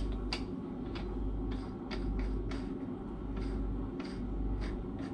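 Small light clicks, about two or three a second, from hands fitting and turning the lid of a diesel generator's fuel filter housing after a new seal has gone in, over a steady low hum of machinery.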